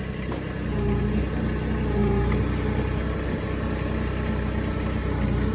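Diesel engine of a compact construction machine running steadily, getting louder about a second in as it works harder.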